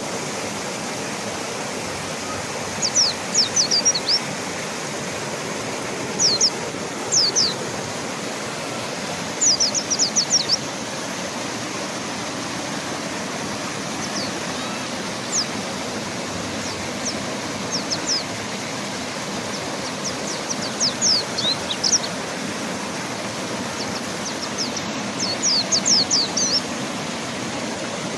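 River water rushing steadily, with a mountain white-eye (pleci gunung) giving short bursts of quick, high chirps several times over it.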